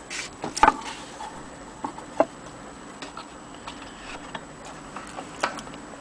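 Scattered clicks and knocks as a record is laid on an antique gramophone's turntable and the soundbox and tone arm are handled; the loudest knock comes about half a second in, with others near two seconds and near the end.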